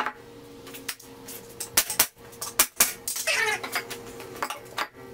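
Sharp wooden knocks and clatter as heavy 4x4 timber legs are stood into the corners of a 2x4 frame on a concrete floor. There is a brief squeak a little over three seconds in.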